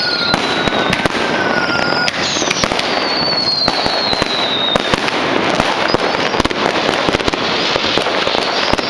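Dense barrage of fireworks and firecrackers going off all around: continuous crackling thick with sharp bangs, and high whistling tones slowly falling in pitch through the first half.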